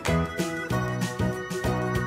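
Upbeat background music: a bright, rhythmic keyboard-style tune with a steady beat.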